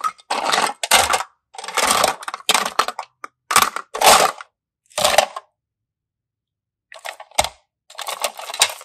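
Small hard-plastic toy containers clattering and clinking against one another in about ten short bursts with brief silent pauses, the longest gap about two-thirds of the way through.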